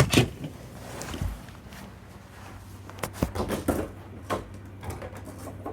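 Irregular clicks and knocks over a steady low electrical hum: two loud knocks at the start, then a quick cluster about three seconds in.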